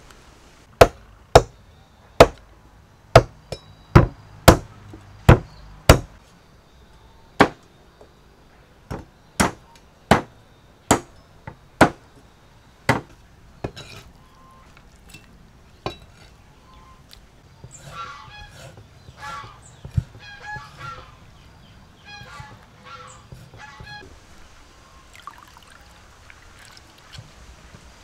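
A heavy cleaver chopping chicken into pieces on a wooden chopping block: a run of loud, sharp chops, about one or two a second for the first thirteen seconds, then only a few. Later, poultry in the background call again and again for several seconds.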